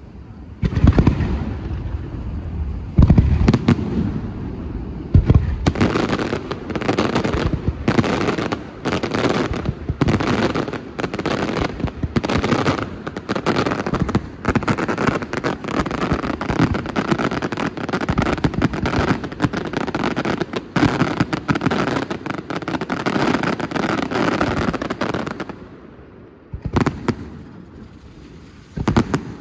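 Fireworks display: a few heavy, separate shell bursts, then a dense, rapid barrage of bangs for about twenty seconds. The barrage dies away near the end, with a couple of last bangs.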